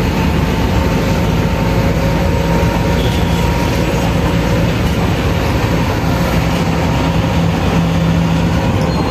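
Bus cabin noise while driving: a steady engine drone with road rumble and a low hum holding one pitch.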